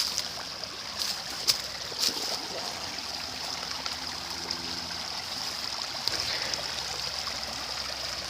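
Small creek running and trickling steadily over a leaf-clogged dam that forms a little waterfall, with a few short sharp clicks.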